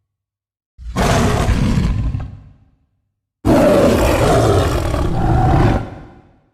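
Two monster roar sound effects: a shorter one about a second in and a longer one a few seconds later, each starting abruptly and fading out.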